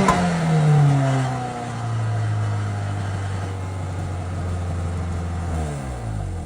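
A Chevy Prism's Corolla four-cylinder engine drops from high revs back to a steady idle, then slows and winds down near the end as it shuts off.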